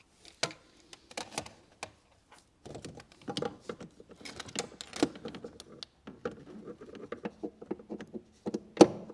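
A few sharp metal clinks as a socket is fitted onto the multi-tooth bolt of the steering rack mounting, then from about a third of the way in a long run of rapid, irregular ratchet clicks and small knocks as the bolt is worked. The bolt is loose, which is the cause of the play and clacking in the steering.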